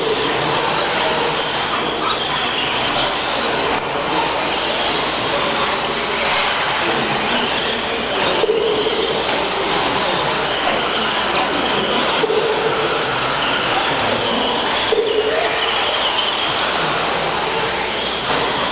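Electric brushless RC stadium trucks racing on an indoor dirt track: short motor-and-gear whines come and go every few seconds as the trucks accelerate through the turns, over a steady loud wash of noise.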